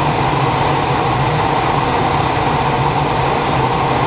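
Steady rush of air around a glider's cockpit on aerotow, with the low, even drone of the tow plane's engine ahead.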